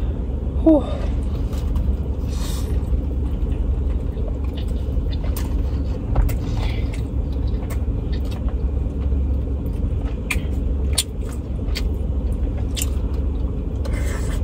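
Car engine idling, heard from inside the cabin as a steady low rumble, with scattered small clicks over it.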